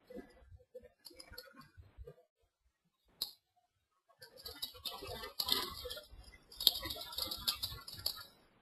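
Computer keyboard typing, faint: a few scattered keystrokes in the first two seconds, a single click about three seconds in, then a steady run of quick keystrokes through the last four seconds.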